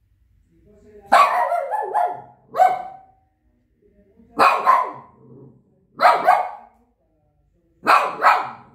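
Shih Tzu barking repeatedly, loud sharp barks mostly in quick pairs, starting about a second in with pauses of a second or so between the groups.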